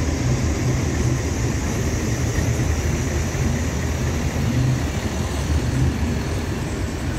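Steady low rumble of idling truck engines, with a broad steady hiss over it.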